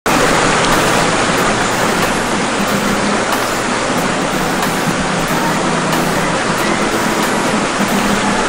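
Fast river water rushing and splashing over rocks in rapids, loud and steady.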